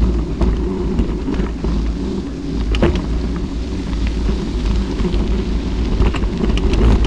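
Vehicle travelling on a rough gravel road: a steady low rumble with scattered sharp clicks of stones and bumps.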